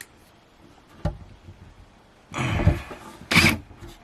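Power drill driving screws into a new cabinet door hinge in short bursts, after a single knock about a second in.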